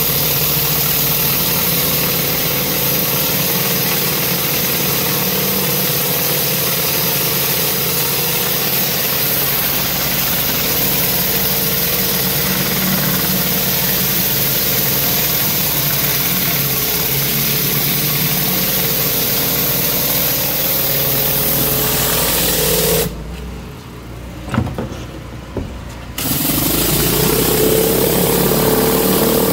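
Sprintjett rotary surface cleaner on a pressure washer blasting concrete: a loud, steady spray hiss over the washer's motor. About 23 seconds in the spray cuts out for about three seconds, then starts again with a rising tone.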